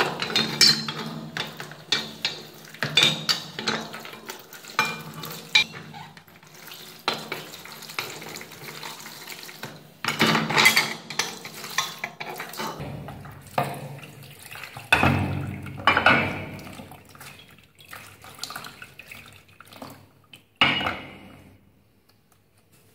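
Rusty metal blower housing parts and fan clattering against one another in a plastic basin of liquid as they are moved by hand, with sloshing and splashing.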